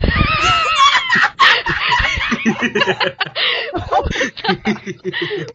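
Loud human laughter in quick, choppy bursts. It opens with a high, squealing voice for the first second or so.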